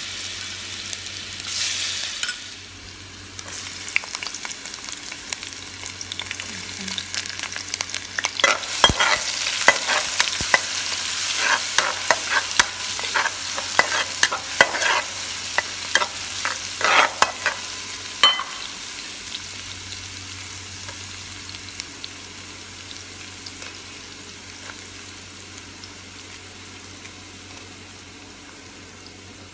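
Chopped garlic, shallots and ginger sizzling in hot oil in a non-stick wok, with a louder surge of sizzling about two seconds in. A spatula scrapes and clacks against the pan from about eight seconds in until about eighteen seconds, after which the sizzle carries on alone and slowly grows quieter.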